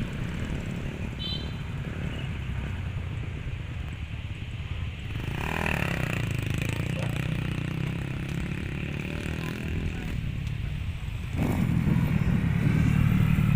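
Motocross bike engines running on a dirt track, the pitch shifting as riders rev. The sound grows louder about eleven and a half seconds in.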